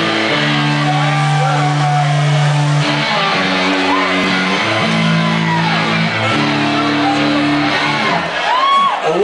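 A rock band playing live, with sustained chords that change every second or so. A voice rises over the music briefly about four seconds in and again near the end.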